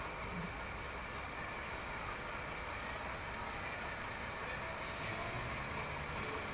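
Semi-truck diesel engine running at low speed as the truck creeps forward, with a short hiss of air brakes about five seconds in.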